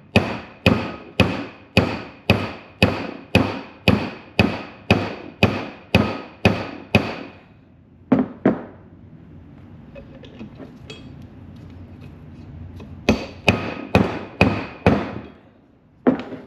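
A hammer strikes a steel bearing race driver, driving a new front wheel bearing race down into a Chevy C10 hub. There is a steady run of sharp metallic blows, about two a second, each with a ringing tone. After a pause with some handling noise, a second short run of strikes seats the race fully.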